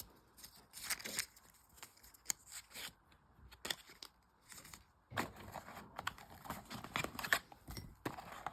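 Camera accessories and their packaging being handled: scattered light clicks and rustles, growing denser about five seconds in.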